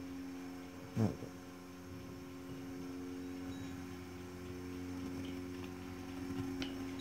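Steady low electrical hum, with one short loud bump about a second in.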